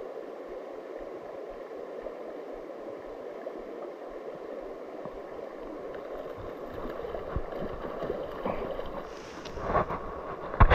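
Shallow rocky creek running steadily over stones, with a few short knocks and a louder burst of noise near the end.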